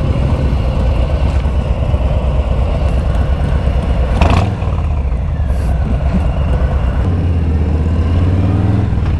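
Harley-Davidson Softail Standard's Milwaukee-Eight V-twin running steadily at idle, with a short clunk about four seconds in, then the revs rise as the bike pulls away near the end.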